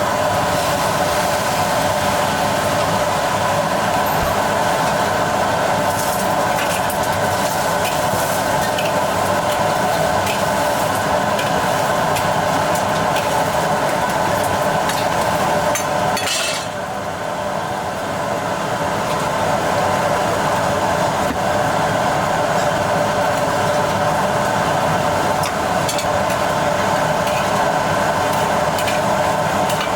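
Cooking in a commercial kitchen: a steady roar with scattered clinks and scrapes of utensils against pots and pans. The roar drops briefly about halfway through, then comes back.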